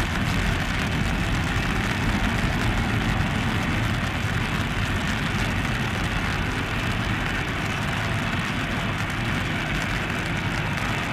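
Steady rumble and hiss of a Boeing 777-300's jet engines on final approach, distant, mixed with rain.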